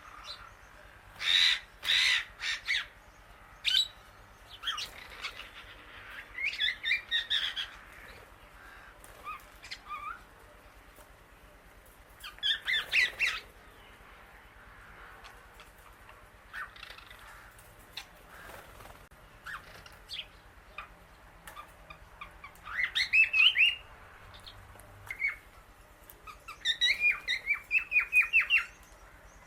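Indian ringneck parakeet and other birds calling: bursts of quick, high calls every few seconds, with the longest rapid series near the end.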